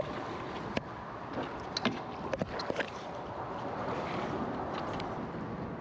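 Water and wind noise around a fishing kayak, with a few sharp knocks and clicks about one to three seconds in.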